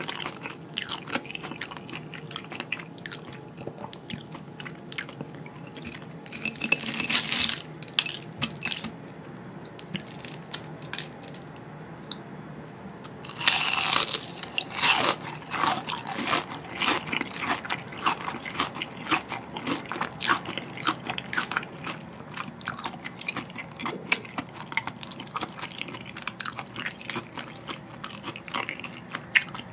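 Close-up crunching and chewing of crispy battered, deep-fried jumbo shrimp. There are loud crunchy bites about seven seconds in and again about thirteen seconds in, with steady crackly chewing between them.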